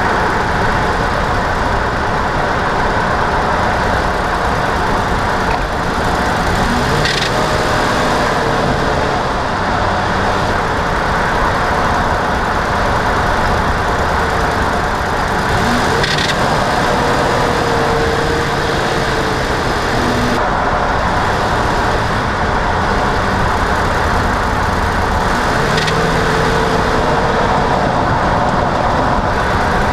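A 2008 Chevrolet Silverado 2500HD with a 6L90 transmission driving, with steady engine and road noise. Three times, about nine seconds apart, there is a brief sharp sound. This fits the split-second ratcheting noise the owner hears on kickdown downshifts, which he suspects comes from the torque converter.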